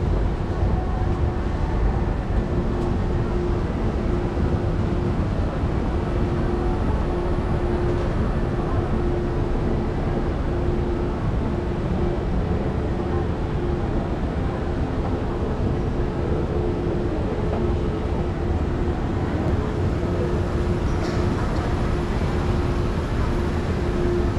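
Long mall escalator running, a steady low mechanical rumble with a constant hum tone, heard from on the moving escalator.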